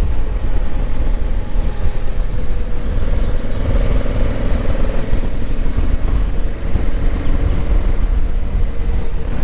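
Honda Africa Twin motorcycle being ridden at a steady pace, its engine running evenly under a constant rush of wind noise on the microphone.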